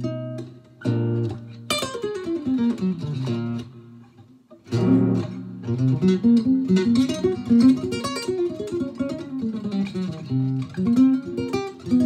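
Cordoba Stage nylon-string guitar played through a Fender Deluxe amp in jazz improvisation. Chords ring out, a falling run of notes leads into a short pause about four seconds in, then a quick single-note line mixes with chords.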